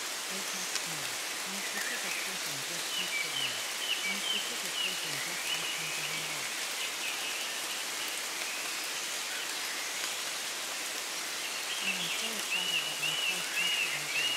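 Steady rain falling, an even hiss of drops on a surface. A run of short high chirps rises above it about three seconds in and again near the end.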